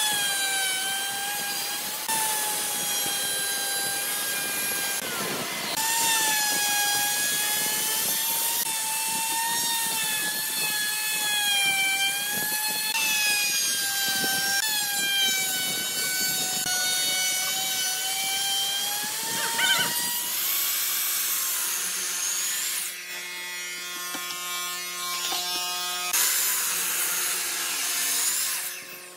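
Handheld wood router running with a high steady whine that wavers slightly as the bit cuts into the board, for about twenty seconds. It then gives way to a lower electric motor hum from a sliding miter saw, with a short loud burst of the blade cutting through a thick wooden post near the end.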